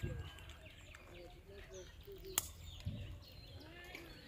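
Birds calling and chirping in many short notes, with a single sharp click a little past halfway and brief low rumbles at the start and about three seconds in.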